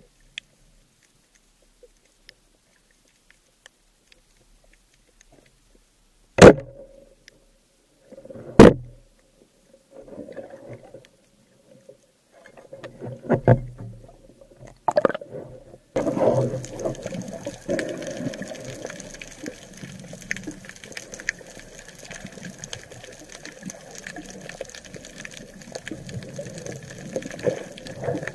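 Underwater speargun sounds: two sharp, loud cracks about two seconds apart, from a roller speargun's shot and spear, then a few weaker knocks. Past the halfway point comes a steady wash of water noise with a faint steady hum.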